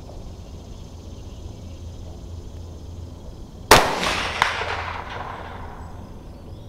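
A single shot from a Mossberg 640K Chuckster .22 Magnum rifle about three and a half seconds in: a sharp crack that rings out and echoes for about two seconds. A shorter, fainter crack follows less than a second after the shot.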